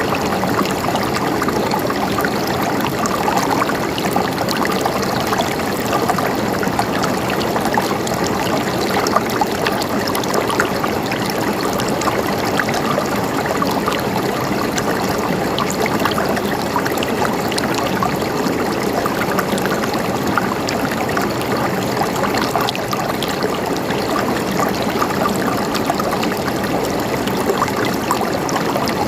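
River water flowing and splashing in a steady rush.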